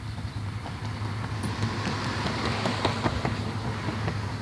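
Approaching freight train: a steady low rumble of diesel locomotives with a hiss that builds toward the middle, and a run of clicks about two to three seconds in.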